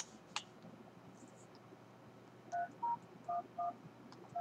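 Telephone keypad touch-tones (DTMF) as a number is dialled: short two-note beeps, four in quick succession from about two and a half seconds in and a fifth right at the end. A single click comes shortly after the start.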